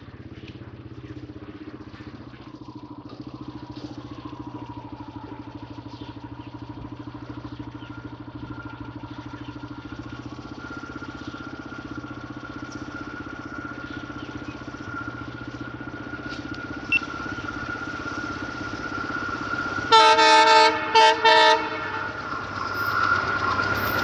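A WDM-3A diesel-electric locomotive's 16-cylinder ALCO engine runs steadily as the train approaches, growing slowly louder. About twenty seconds in, its horn sounds three times: one longer blast, then two short ones.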